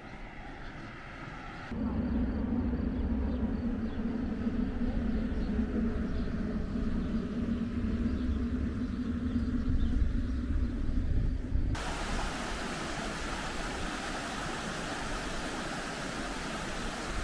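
A loud low rumble with a steady hum for about ten seconds. About twelve seconds in it changes abruptly to the even rushing hiss of a fast mountain stream running over rocks.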